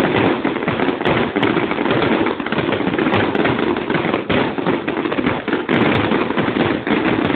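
Aerial fireworks bursting overhead, with a dense, continuous rapid crackling of many shells and sparks going off together.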